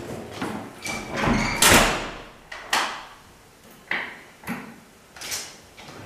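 Heavy hotel-room door closing, the loudest thud about a second and a half in, followed by several shorter, sharper knocks.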